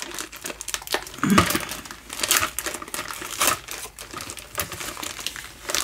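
Clear plastic packaging film crinkling and crackling in irregular bursts as it is pulled and peeled off a white plastic snap frame.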